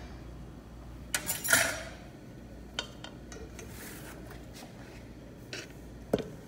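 Metal mixing bowls and a spatula clinking and knocking against each other, with a cluster of knocks about a second in and a few single clicks later, over a faint low hum.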